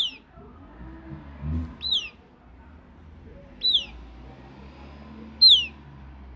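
Southern lapwing (quero-quero) chick calling: a high, piercing peep that slides downward, repeated four times at about two-second intervals.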